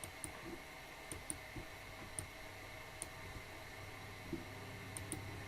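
Computer mouse clicking: scattered single and double clicks, about seven in all, over a faint steady hum.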